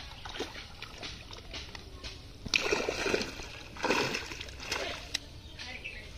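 Fish thrashing and splashing in a cast net as it is hauled to the pond's edge, in two loud bursts about halfway through, then a smaller splash.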